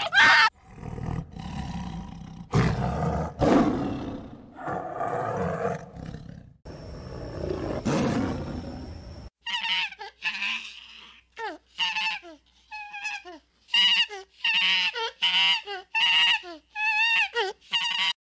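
Animal calls. A few long, rough, noisy calls last about nine seconds, then there is an abrupt change to a different animal giving a rapid series of short, high-pitched calls, about two a second.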